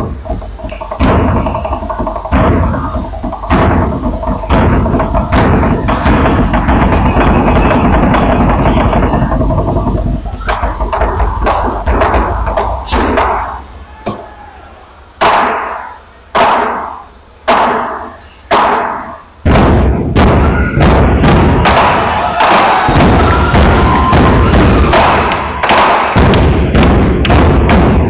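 An ensemble of large barrel drums beaten with sticks, playing fast dense patterns. About halfway through the playing thins to about five single heavy strikes roughly a second apart, each ringing out, before the fast playing starts again.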